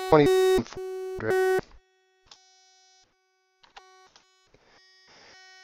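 A steady electronic buzzing tone that cuts in and out abruptly, loud for the first second and a half, then faint and broken, returning faint and steady near the end.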